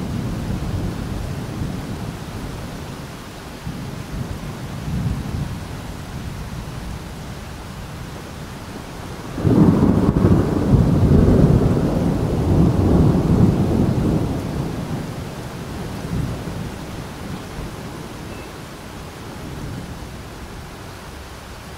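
Thunderstorm: low rolling rumble of thunder, with a loud clap breaking in about nine seconds in that rolls on and dies away over about five seconds.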